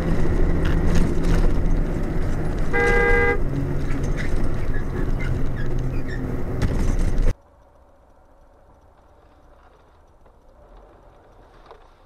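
Loud engine and road noise from inside a moving vehicle, with a single horn blast of about half a second roughly three seconds in. The noise cuts off abruptly about seven seconds in, leaving only a faint hum.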